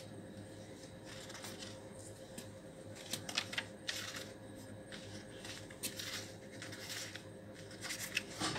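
Paper sheets on a clipboard rustling as they are lifted and leafed through, in several short rustles, most of them in the second half, over a faint steady hum.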